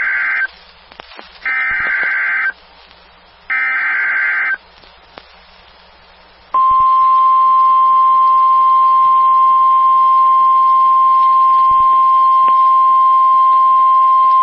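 Emergency Alert System SAME header: the end of one data burst and two more, each a harsh electronic buzzing about a second long with a second's gap between them. About two seconds later the weather-radio attention signal starts, a single loud, steady electronic tone that holds to the end. Together they mark the start of a severe thunderstorm warning broadcast.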